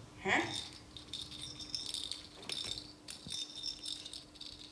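A small rattle being shaken in short bouts, several times over a few seconds.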